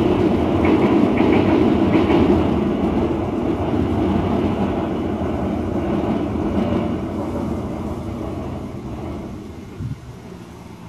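Steam-hauled passenger train rolling across a steel truss bridge, a loud continuous running noise of wheels on rail that fades steadily in the second half as the train moves away.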